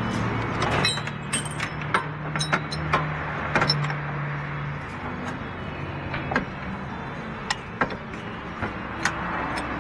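Irregular sharp metallic clicks and clinks of hand tools and parts being handled during car suspension work, over a steady background hum.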